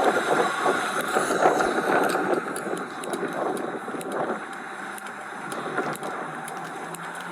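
Motor vehicle noise, a car running. It is louder for the first couple of seconds, then settles to a lower steady level, with a few faint clicks over it.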